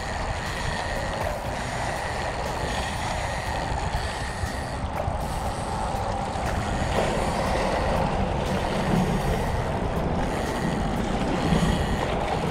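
Spinning reel being cranked steadily while reeling in a hooked fish, its handle turning with faint repeated ticks. Wind rumbles on the microphone throughout.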